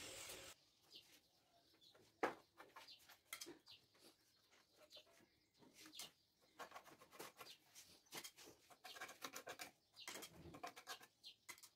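Faint scattered clicks and scrapes of a small spreader working contact adhesive and tapping in a glue tin, with one sharper click about two seconds in; otherwise near silence.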